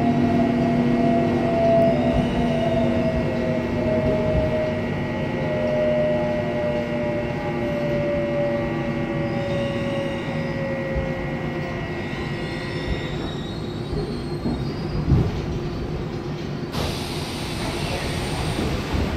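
Seoul Line 1 electric subway train heard from inside the car as it brakes into a station: the motor whine falls slowly in pitch as the train slows, over steady wheel and rail noise. The train comes to a stop, and a sudden hiss starts about three seconds before the end.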